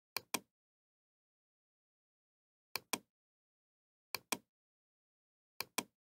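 Computer mouse clicking: four pairs of sharp clicks, each pair about a fifth of a second apart, spaced a second or more apart in otherwise dead silence.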